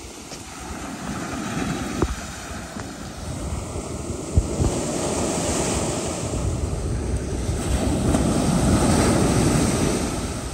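Ocean surf washing up the beach and draining back over the sand, swelling and easing twice, with wind buffeting the microphone.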